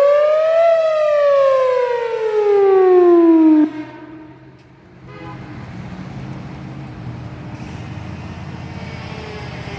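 Outdoor tornado warning siren sounding one loud tone that rises briefly, then slides steadily down in pitch as the siren winds down, and cuts off abruptly about three and a half seconds in. A low, steady rumble like a passing motor vehicle follows.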